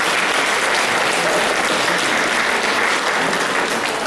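Audience applauding steadily in a hall, thinning out near the end.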